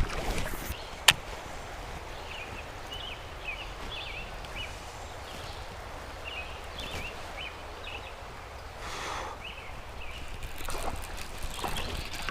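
Creek water running as a steady rush, with small bird chirps over it and one sharp click about a second in.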